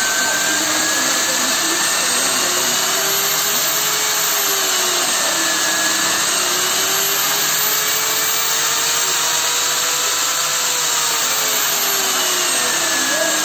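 Interskol 750 W corded drill running with no load through a dimmer-module speed controller. Its motor whine slowly rises and falls in pitch several times as the controller's knob is turned, changing the drill's speed.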